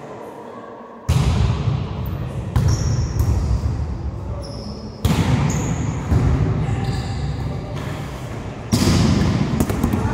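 Volleyball being struck during a rally in a gymnasium: five sharp slaps about one to three seconds apart, each ringing on in the hall's long echo.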